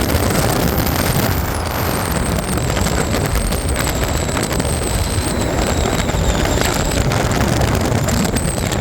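A high-pitched squeak, a thin wavering tone held for several seconds, fading about seven seconds in and returning briefly near the end. Under it runs a steady loud rumble with wind buffeting the microphone.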